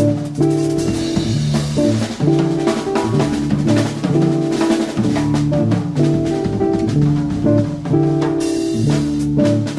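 Background music with a drum kit keeping a steady beat under sustained chords.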